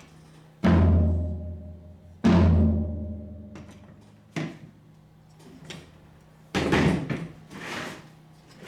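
Pearl Session Custom SMX maple drum kit sound test: two single low drum strikes, each left to ring out with a deep sustained tone, then a lighter hit. Near the end come a few louder hits with a bright ringing wash over them.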